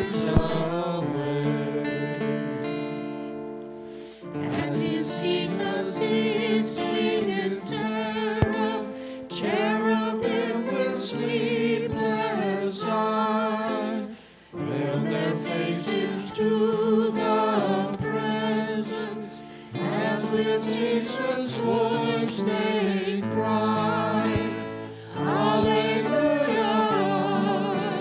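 Church music: singing with instrumental accompaniment, in held phrases broken by brief pauses.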